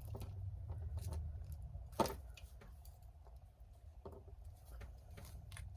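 Small metal clicks and handling noise of pliers crimping a metal clamp end onto thick ribbon, with one sharp click about two seconds in, over a low steady hum.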